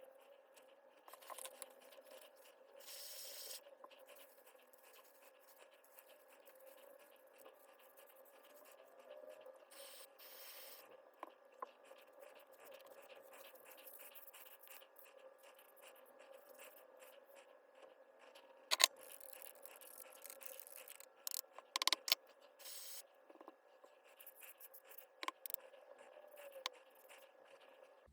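Quiet rubbing and scraping of hand work on a disassembled cordless hammer drill's parts, with a few sharp clicks of parts knocking together in the second half, over a faint steady hum.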